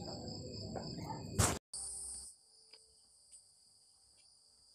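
Crickets chirping steadily in the background over faint room noise, with a sharp knock about a second and a half in. After that only a faint high hiss and a few soft clicks remain.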